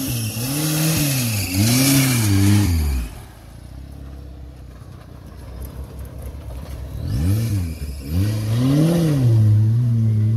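Off-road 4x4's engine revving in short bursts, its pitch rising and falling about three times, then dropping away for a few seconds. It revs twice more and settles to a steady run near the end.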